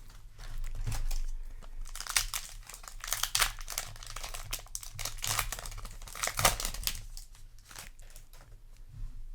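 Foil Yu-Gi-Oh! booster pack wrappers crinkling and crackling as they are handled, in a run of irregular crackles that thins out near the end.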